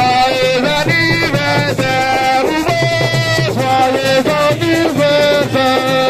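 Live music: a voice singing long, sliding, ornamented notes over percussion.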